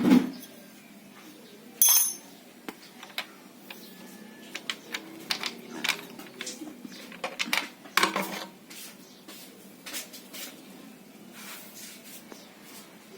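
Scattered metallic clinks and clicks of small metal objects being handled, with sharper knocks about two seconds in and again about eight seconds in.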